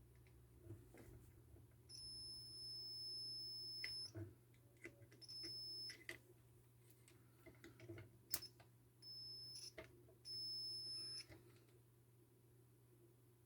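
Four high-pitched electronic beeps of uneven length, the first about two seconds long and the others under a second, with light clicks and taps between them.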